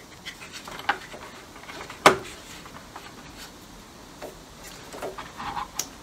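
Plastic clicks and knocks as coolant hoses are pressed into their plastic retaining clips around a car's coolant expansion bottle, with one sharp, loud snap about two seconds in.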